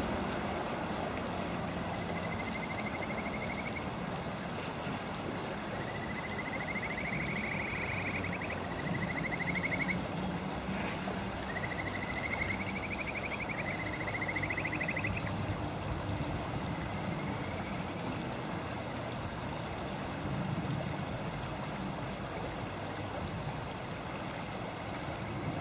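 Frog calling: a handful of short, rapidly pulsed trills that each rise in pitch, spread over the first fifteen seconds or so, above a steady rushing background noise.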